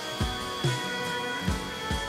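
Background music with a steady drum beat under sustained instrumental tones.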